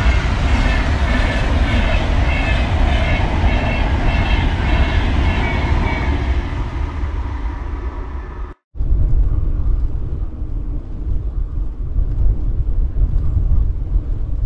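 Train passing close by: a loud rushing rumble with a repeating higher rattle over it. A brief dropout cuts it off a little past halfway, and after it a duller, steady low rumble continues.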